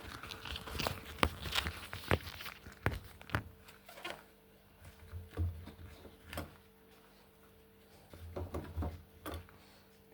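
Fingers working at a blocked plastic washing-machine drain filter to pull out clogged fibres: scattered small clicks, knocks and rustles, sparser in the second half, over a faint steady hum.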